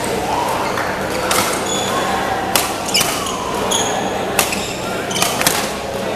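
Badminton rackets striking shuttlecocks on several courts in a large, echoing hall: a string of sharp hits, a second or less apart, over a steady murmur of voices.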